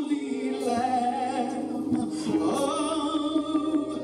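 Gospel song with singing over music: long held notes with vibrato over a steady low accompaniment. The melody moves higher about two and a half seconds in.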